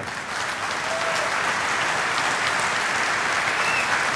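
An audience applauding, building up over about the first second and then holding steady.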